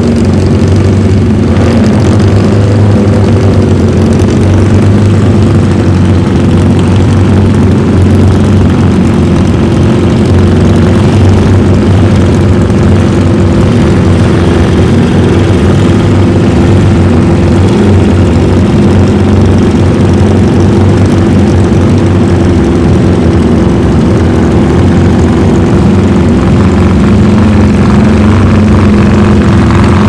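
Several classic four-stroke racing motorcycle engines, among them a BMW flat-twin and a Benelli, running together at a steady idle, loud and even, with no big revs.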